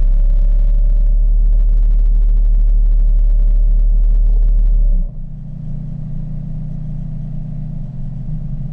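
Electric thruster motors of a home-built underwater ROV running, a steady whine with a low hum heard through the camera underwater. The motors run harder at first, then drop suddenly to a lower, different steady whine about five seconds in as the thrust changes.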